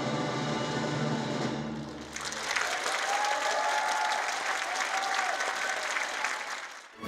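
An orchestra holds a final chord for about two seconds, then a concert audience applauds. The applause cuts off suddenly near the end.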